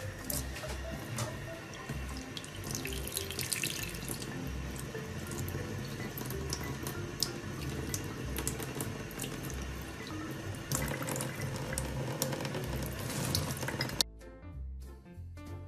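Water running steadily from a faucet into a sink, over background music with a steady beat. The running water cuts off suddenly near the end, leaving only the music.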